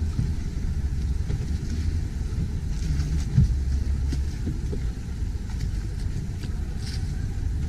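Steady low rumble of motorboat engines on the canal, with a single knock about three and a half seconds in.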